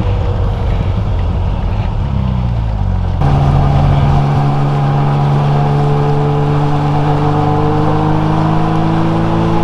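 Honda Gold Wing GL1500's flat-six engine running under way. Its pitch climbs briefly, then about three seconds in it settles into a steady drone that rises slowly as the bike gathers speed, over a rush of wind and road noise.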